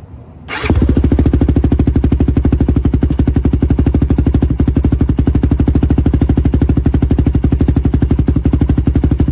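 Yamaha YFZ450's single-cylinder four-stroke engine running at a steady idle in gear, with an even rapid beat, driving the chain and the bare rear axle round on a stand. The engine comes in sharply about half a second in.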